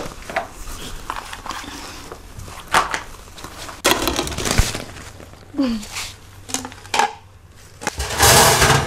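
Kitchen handling sounds at an oven: scattered knocks and clatters of an oven door and a metal tray, with a louder noisy scrape shortly before the end.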